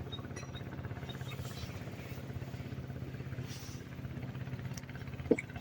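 A small engine running steadily with a fast, even pulse. A single sharp click comes near the end.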